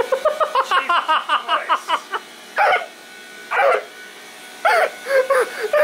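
Excited, high-pitched vocalising: a fast run of short yelps falling in pitch, then a few longer, arched calls about a second apart, over a faint steady hum.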